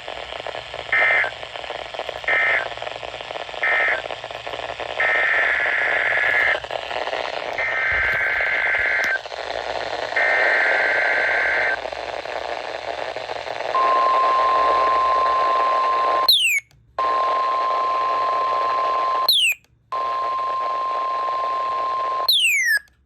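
Emergency Alert System data tones on NOAA Weather Radio. First come three short screeching end-of-message bursts, then the three longer digital header bursts that open the next severe thunderstorm warning. About 14 seconds in, the steady single-pitch 1050 Hz Weather Radio alert tone starts, cutting out briefly three times with short falling chirps.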